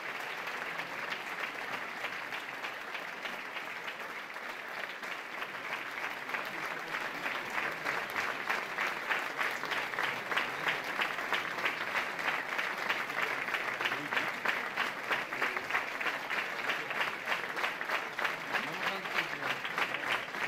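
Audience applauding: many hands clapping together. It swells about eight seconds in and settles into a regular pulse.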